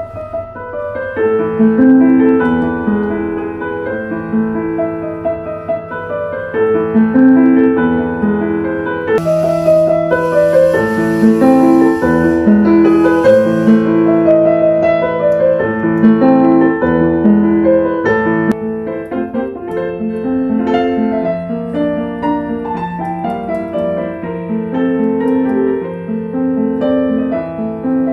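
Roland RP-102 and RP-107 digital pianos played in turn, a flowing piece of broken chords over sustained bass notes in the instruments' grand piano tone.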